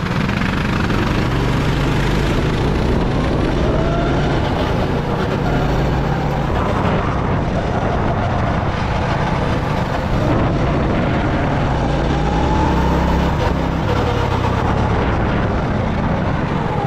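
Small go-kart engine running at speed, its pitch rising and falling as the kart accelerates and eases off, over a steady low rumble.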